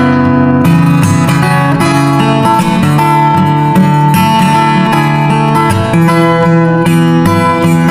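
Background music: acoustic guitar played with strummed chords and picked notes.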